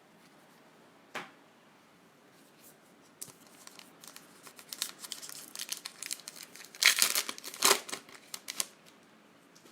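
A trading card pack wrapper being torn open and crinkled by hand: a single click, then a run of quick crackling rustles, loudest near the end.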